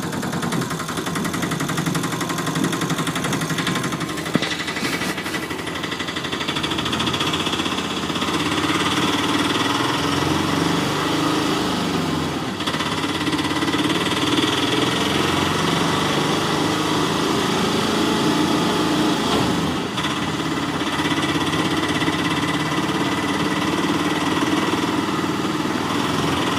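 A motor running steadily while the mini toy tractor tows a stuck toy auto-rickshaw on a string.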